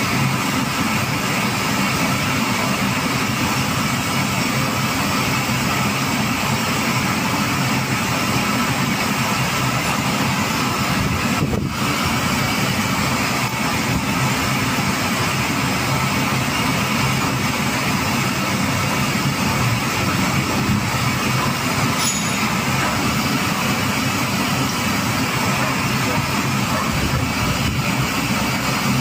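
Steady mechanical drone of running machinery: an even rushing noise over a low hum, with no clear strokes or clanks, dipping briefly once about halfway through.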